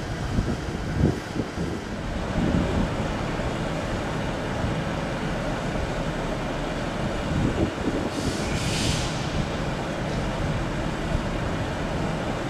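Class 156 diesel multiple unit standing at the platform with its underfloor diesel engines running in a steady low rumble. A short hiss sounds about two-thirds of the way through.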